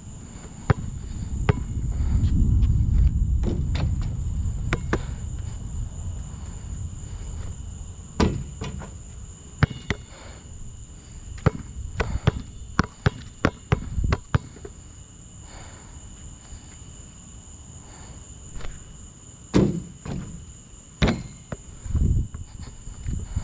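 A basketball bouncing on a hard court, dribbled in quick runs of sharp thuds, with a few heavier bangs near the end. Behind it, a steady high insect drone like crickets, and a low rumble in the first few seconds.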